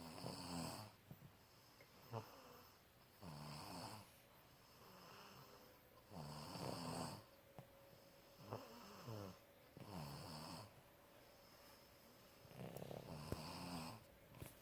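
Someone sleeping and snoring quietly, with rough, rasping snores repeating irregularly about every one to three seconds.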